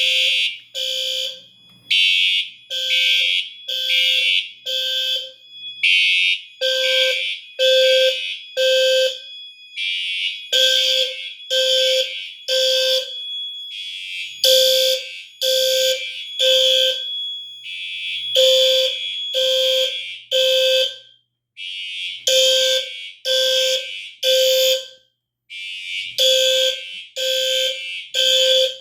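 Fire alarm notification horns sounding in the temporal-three evacuation pattern: three tone pulses about a second apart, a pause, then three again. A second, higher-pitched horn pulses out of step with the first, at times holding its tone between pulses.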